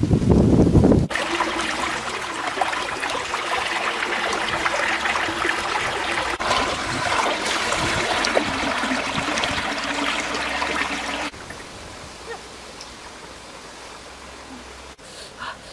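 Shallow stream running over rocks: a steady rush of water that cuts off about eleven seconds in. A brief low rumble comes first.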